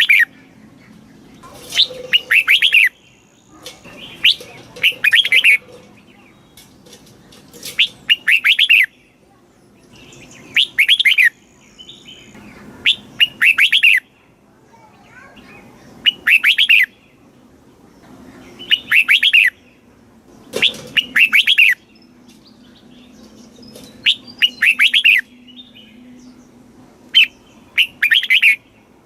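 Red-whiskered bulbul singing: short, quick phrases of whistled notes, about one every two to three seconds.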